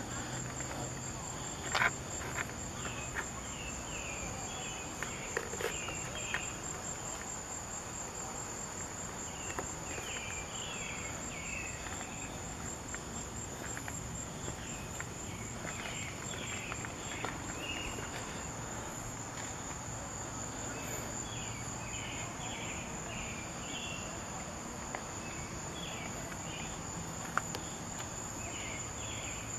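Insects trilling outdoors in a steady, high, pulsing drone, with short chirps coming and going. A few sharp clicks cut through, the loudest about two seconds in.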